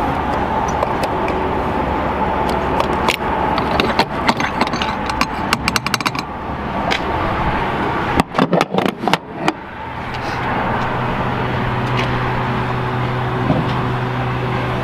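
A car's steady running hum, with a run of sharp clicks and knocks in the middle. A steadier low hum with a fixed tone sets in about ten seconds in.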